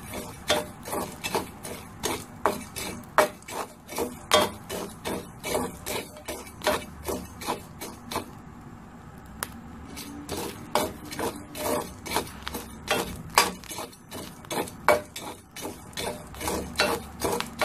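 A spatula stirring black chickpeas through hot salt in a pan as they dry-roast: a quick run of scraping strokes, about two to three a second, with a short pause around the middle.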